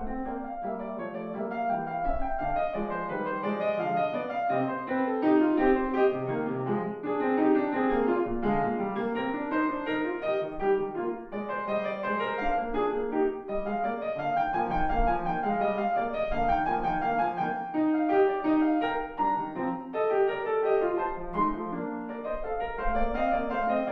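Longato concert grand piano played solo: a continuous stream of classical keyboard music with several lines of notes moving at once.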